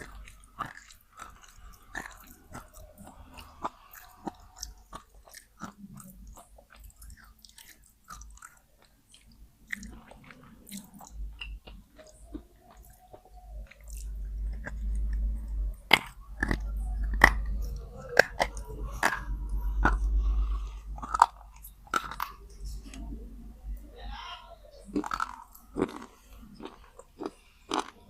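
Wet slate pencils being bitten and chewed close to the microphone: a string of sharp, irregular crunches. It gets louder in the middle, with a deep rumble under the chewing.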